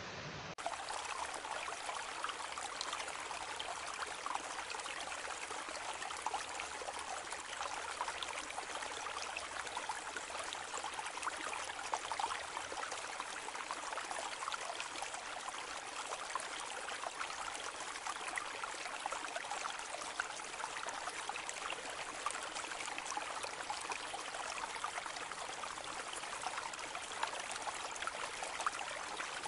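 Steady hiss of noise with fine crackles throughout, sounding like running water, with no change beyond a shift in the noise about half a second in.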